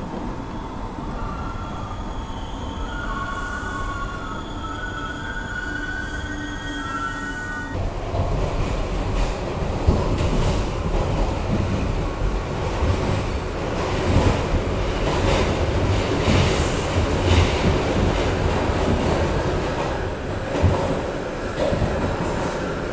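New York City subway train running through a tunnel, heard from inside the car. For the first several seconds its wheels squeal in wavering high tones over the rumble. At about eight seconds the rumble grows louder, with clatter from the wheels over the rail joints.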